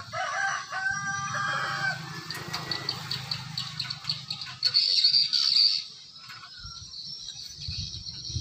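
A rooster crows once at the start, a call of about two seconds. It is followed by a rapid high-pitched ticking trill and, around the middle, a louder high-pitched buzz lasting about a second.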